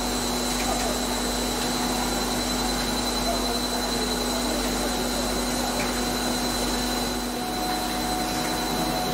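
Plastic profile coextrusion line running: a steady mechanical hiss and hum of its motors and pumps, with a constant high whine. A second steady tone joins about seven and a half seconds in.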